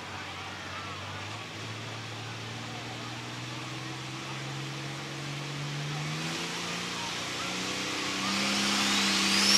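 Super stock pulling tractor's turbocharged diesel engine running at low speed and slowly building revs. Near the end a high turbocharger whine climbs steeply in pitch as the engine spools up for the pull.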